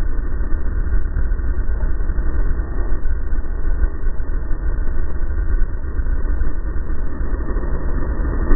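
Racing snowmobile in a Pro 500 lakecross heat running at speed, its engine and track a loud continuous noise, heard over heavy wind rumble on the sled-mounted microphone.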